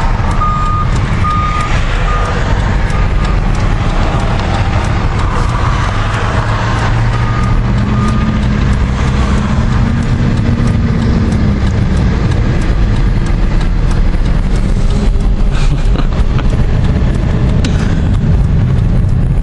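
Vehicle engine and road rumble heard from inside a car's cabin, idling in traffic and then pulling away, the engine note rising and falling between about eight and twelve seconds in. A high electronic beep repeats about one and a half times a second for the first few seconds and again briefly about seven seconds in.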